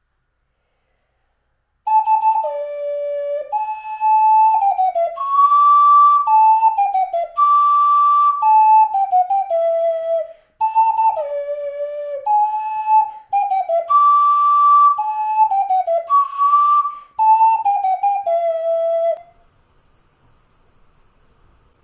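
3D-printed PLA ocarina played: a short melody of clear, whistle-like notes, played as two similar phrases with a brief break between them, with audible breath noise on the highest notes. It starts about two seconds in and stops a couple of seconds before the end.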